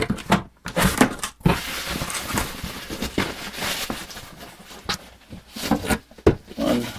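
Cardboard boxes and packing material being handled while unpacking: a few sharp knocks and clicks, then a steady rustling for a few seconds, then more knocks.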